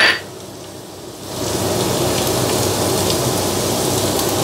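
Minced garlic and dried chillies sizzling in hot oil in a non-stick frying pan, a steady crackling hiss that swells about a second and a half in. A short knock of the spatula against the pan comes at the very start.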